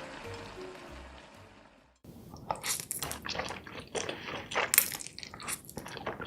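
Background music fades out over the first two seconds. Then close-miked eating begins: a quick run of crunchy, wet bites and chewing.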